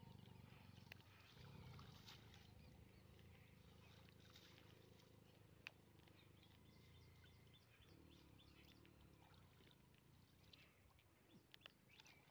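Very faint water sloshing and splashing around a person wading in shallow river water with a cast net, over a low steady rumble, with a few soft splashes near the end.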